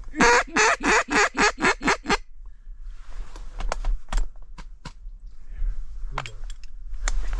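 Mallard duck call blown by a hunter: a fast run of about eight loud quacks in two seconds, the hail call used to turn passing ducks. Scattered light clicks and knocks follow.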